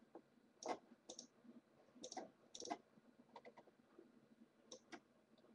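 Faint, irregular clicks of a computer mouse and keyboard as a list of text is selected and copied.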